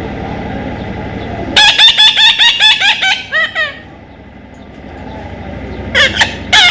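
Parrot squawking: a quick run of about a dozen harsh, repeated calls starting about a second and a half in, tailing off into a few falling calls, then a short burst of two or three more calls near the end. A low rumble of background noise comes before the calls start.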